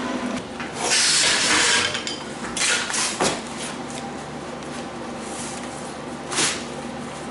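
A short hissing burst about a second long, starting about a second in, then a few sharp knocks and clatters of welding gear and metal as someone settles under a steel race-car chassis.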